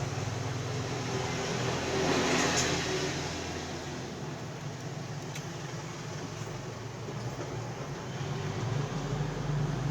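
Steady background noise with a low hum, swelling for about a second two seconds in, with a faint click about five seconds in.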